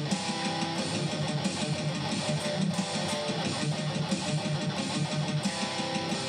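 Distorted electric guitar playing a fast riff of rapidly picked low notes.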